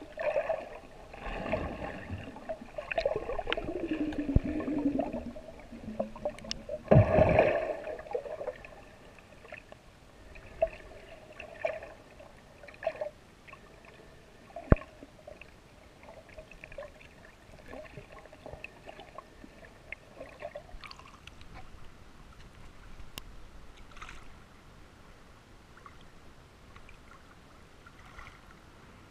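Muffled water sloshing and gurgling picked up through a GoPro camera's waterproof housing while snorkeling. It is busiest in the first eight seconds, with a heavy surge of water about seven seconds in, then settles to a quieter wash with scattered sharp clicks.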